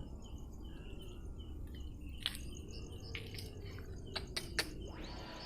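Crickets and other night insects chirping in short repeated notes over a steady high pulsing trill, with a low rumble beneath and a few sharp clicks in the second half.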